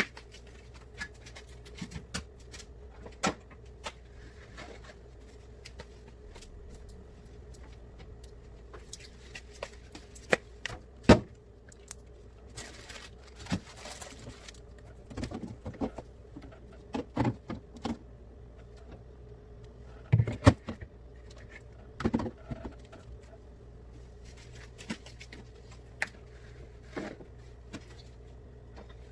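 Scattered knocks, clicks and clatter of items and shelves being handled while cleaning out a refrigerator, with a short stretch of rubbing or wiping about halfway through, over a steady low hum.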